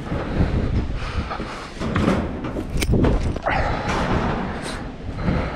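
A person scrambling and climbing on foot: scuffs, footsteps and a few sharp knocks, over a low rumble of clothing and camera jostling.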